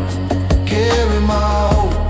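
Soundtrack music: a pop-style song with a steady beat and a gliding melody line.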